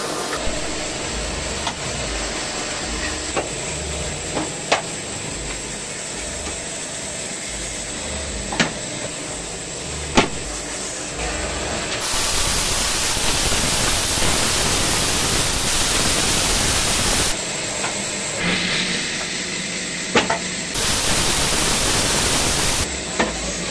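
Woodworking machine running, with a few sharp knocks of wood in the first half. A small power saw blade then cuts notches through a stack of plywood strips, in a loud hissing burst of several seconds around the middle and a shorter one near the end.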